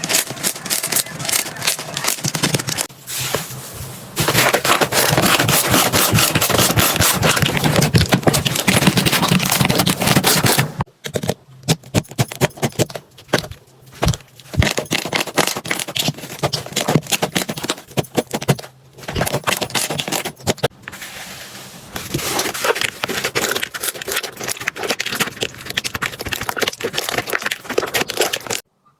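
Slime being squeezed and pressed by hand, making dense crackling and popping clicks. The pops thin out in the middle stretch and turn dense again near the end.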